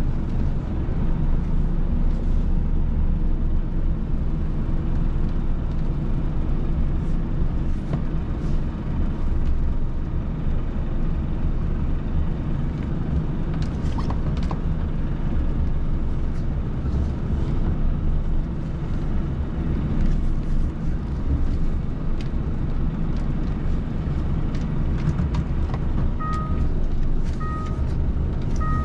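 Tractor-trailer's diesel engine running steadily as the rig pulls into a parking space. Near the end its reversing alarm starts beeping about once a second as it backs in.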